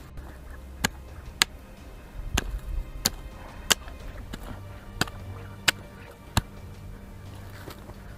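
Pickaxe striking the ground in repeated digging blows: about eight sharp strikes, one every half-second to second.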